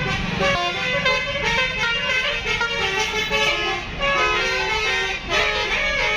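Tour buses' telolet (basuri) multi-tone air horns playing melodic tunes, short notes stepping up and down in pitch, several tunes overlapping, over a low engine rumble.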